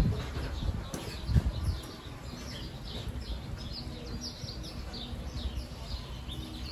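A flock of small birds chirping: many quick, downward-sliding high chirps overlapping one another, over a steady low rumble. There are a couple of loud low thumps in the first two seconds.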